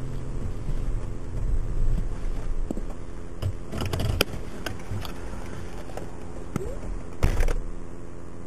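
Patrol car driving along the interstate, picked up inside the cabin: a steady engine and road drone. A few brief knocks and clicks come in the middle, and a short burst of noise near the end.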